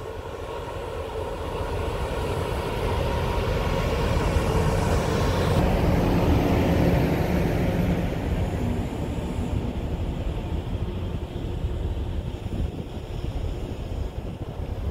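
Diesel locomotive running under power as it passes close by, followed by passenger coaches rolling past on the rails. The sound builds to its loudest about six seconds in, then eases into a steadier rumble of the coaches going by.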